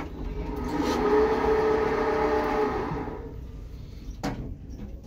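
Lift machinery humming steadily as the glass elevator car travels, swelling and then fading, with a single clunk a little after four seconds in.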